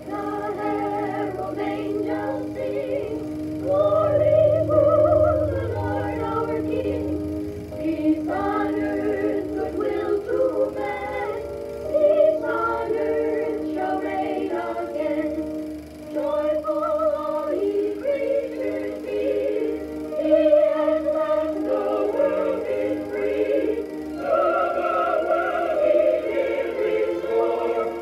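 A cartoon choir of young voices singing a Christmas hymn together over a steady held accompaniment, heard from the soundtrack of a projected Super 8 film.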